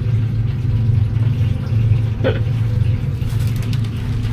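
Steady low machine hum, with one short, brief higher sound about two seconds in.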